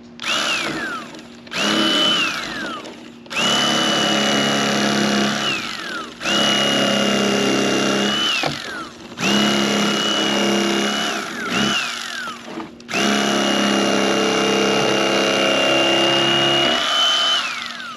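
Electric fillet knife run in about seven bursts of one to five seconds, its motor whine climbing as it spins up and dropping away each time it is let off, with a buzzing of the blades; it is cutting a sheepshead fillet away from its thick skin.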